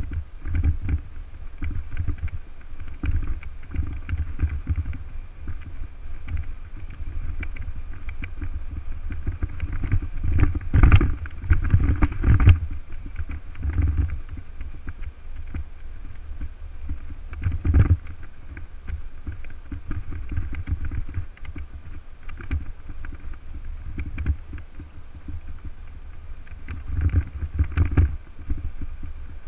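Wind buffeting the microphone of an action camera on a moving mountain bike, a continuous low fluttering noise. A few sharp knocks come through as the bike jolts over the cracked road, the loudest about eleven and eighteen seconds in.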